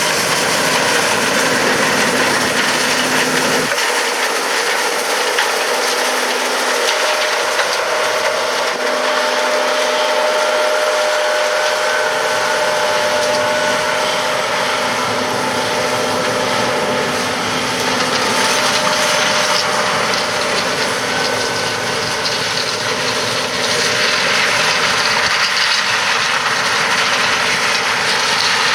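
John Deere S680 combine running steadily while harvesting corn: a loud, even mechanical din with a few held whining tones.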